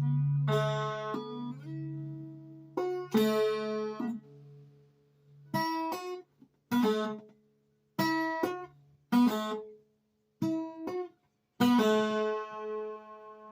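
Acoustic guitar played slowly: single chords strummed one at a time and left to ring out, with short pauses between some of them.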